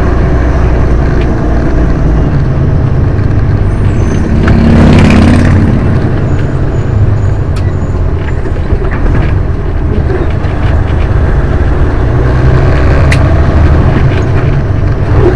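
Western Star truck's Detroit diesel engine running under way, heard from inside the cab, its note shifting up and down several times as the Eaton Fuller 18-speed Road Ranger gearbox is worked through the gears. A brief hiss about five seconds in.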